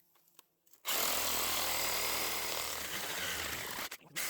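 Battery-powered reciprocating saw cutting through dry standing deadwood. It starts about a second in and runs steadily, stops briefly near the end, then starts again.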